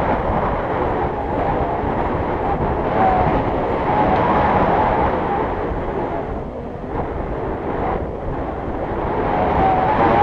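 Wind rushing and buffeting over the microphone of a pole-held GoPro in flight under a tandem paraglider. A steady rumble with a thin, wavering whistle that comes and goes.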